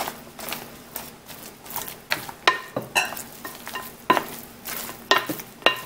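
A wooden spoon stirring custard-soaked bread cubes in a mixing bowl: soft, wet squelching, with irregular knocks and clicks of the spoon against the bowl.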